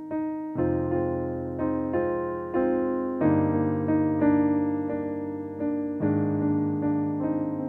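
Improvised smooth-jazz piano: chords struck about once a second over a held, repeating mid-high note, with deep bass notes coming in about half a second, three seconds and six seconds in.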